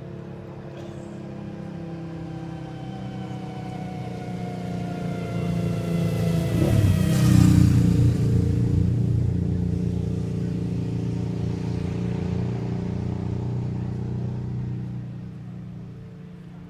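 A motor vehicle passing close by on a wet road: its engine tone grows louder and falls steadily in pitch, with a swish of tyres on wet asphalt at the loudest point about seven seconds in, then a low engine drone that fades near the end.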